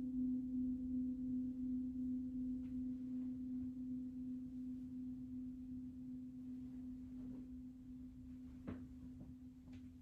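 A struck metal percussion instrument's low, steady ringing tone, with one faint higher overtone, slowly dying away. A few faint ticks come near the end.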